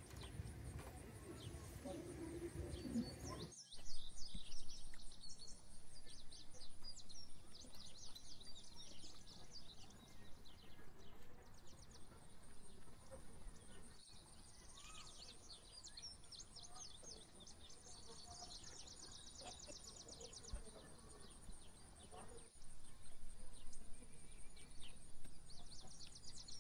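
Small birds chirping and singing again and again, over a steady high-pitched hum. A low rumble runs under the first few seconds, then stops abruptly.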